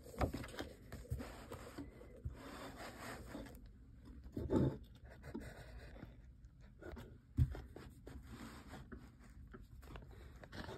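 Paper notebook handled by hand: pages turned and rubbed flat, with scattered light clicks and rustles. There is a brief louder sound about four and a half seconds in and a sharp knock about seven and a half seconds in.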